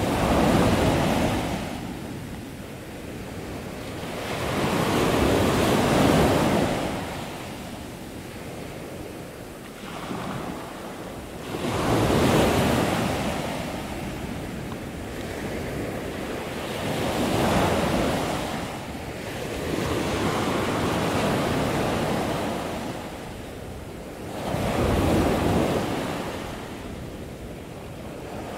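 Pacific surf breaking on a sandy beach: the rush of each wave swells up and dies back, about every five to six seconds.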